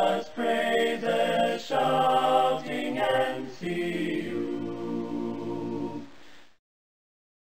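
Choir singing a cappella, ending on a long held chord that fades and stops about six and a half seconds in.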